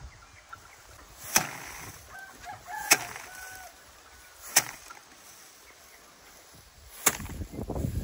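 Sheaves of cut rice slapped down onto the wooden slatted rack of a threshing tub to beat the grain off the stalks: four sharp strikes, unevenly spaced a second and a half to two and a half seconds apart.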